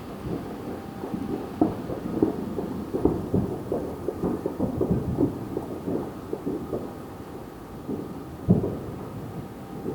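Distant New Year's fireworks going off: many irregular, overlapping dull booms and pops, several a second, with one louder bang about eight and a half seconds in.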